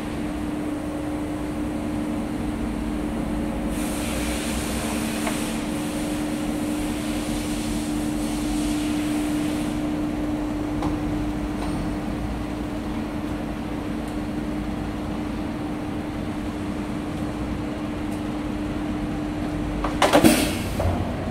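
Motor drive of an LCD polarizer delaminator humming steadily as its table tilts. A hiss rises over it for several seconds, and near the end the hum stops with a loud knock.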